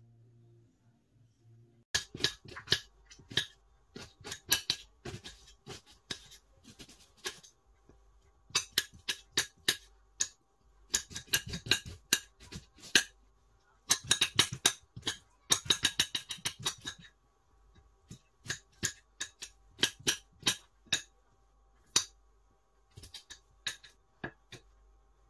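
Knife chopping an onion against a plate: runs of quick, sharp taps of the blade on the plate, starting about two seconds in, broken by short pauses.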